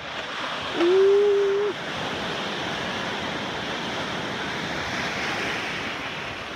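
Small ocean waves breaking and washing around, with some wind on the microphone. About a second in, a person lets out a held one-note whoop lasting about a second, the loudest sound.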